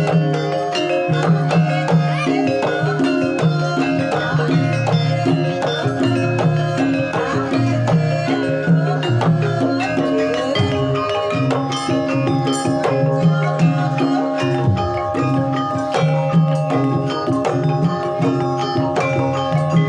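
Javanese gamelan music: bronze metallophones and gongs ringing steady notes over a running pattern of hand-drum strokes.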